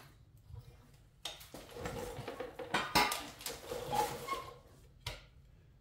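Light metallic clinks and scraping as a Ford 8N tractor engine's side valve cover and its old gasket are handled and pulled off. There are sharp clinks about a second in, around three seconds, and near the end.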